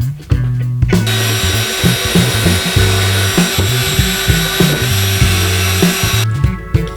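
A power tool runs steadily, with a dense hiss and a thin high whine, from about a second in until shortly before the end, over background music with a bass line.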